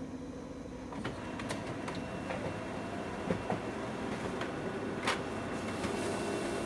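Lexmark CX921 colour laser multifunction printer running a two-sided (duplex) copy: a steady whir from its paper-feed drive that gets louder about a second in, with sharp clicks scattered through it.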